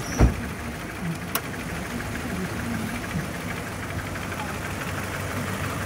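2013 Toyota 86's 2.0-litre flat-four boxer engine idling steadily. A short low thump comes just after the start, and a sharp click about a second and a half in.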